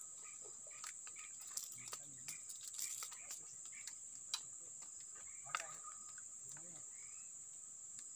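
Insects trilling in a steady high-pitched drone, with a scatter of close clicks and taps between about one and a half and five and a half seconds in.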